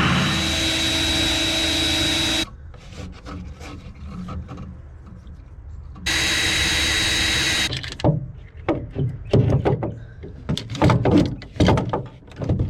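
A small motor runs steadily in two bursts of about two seconds each, starting and stopping abruptly, followed by scattered clicks and knocks.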